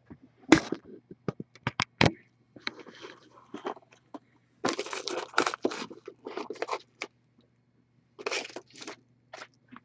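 Cardboard trading-card boxes being handled: a few sharp knocks as they are picked up and set against each other, then stretches of rustling and scraping as they are slid and turned over on the desk.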